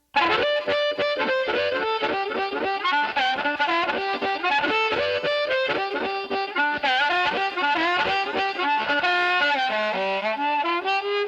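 Music: a fast instrumental melody of quick, short notes with no singing, starting abruptly.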